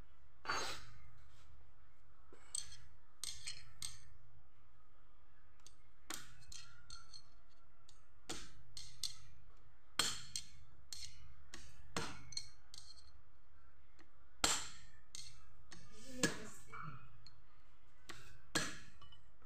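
Irregular metallic clicks and clinks from a hand tool and parts on a disassembled motorcycle engine crankcase, as a bolt in the case is turned with a socket on a long extension bar. A steady low hum runs underneath.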